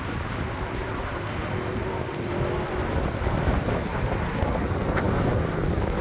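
Steady outdoor rumble of motor traffic on a road below, mixed with wind buffeting the phone's microphone. A faint engine tone rises out of it around the middle.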